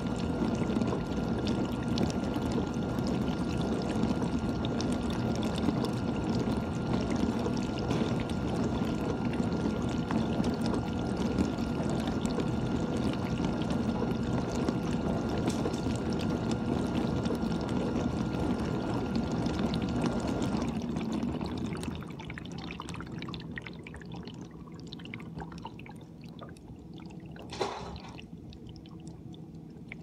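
GE dishwasher running: water spraying and splashing inside the tub over a steady pump-motor hum. About two-thirds of the way through the spray and hum stop, leaving quieter trickling and dripping, with one brief knock near the end.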